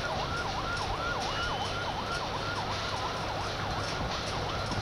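Emergency vehicle siren sounding a fast yelp, about three sweeps down and back up in pitch each second, over the steady noise of a large crowd.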